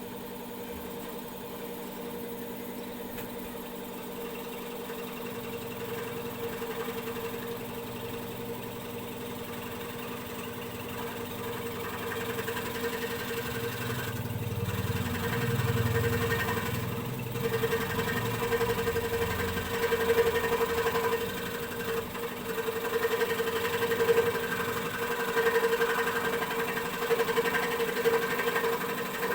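Heavy-duty electric scroll saw running with a steady hum, its blade cutting through a wooden piece; the sound grows louder and rougher about halfway through.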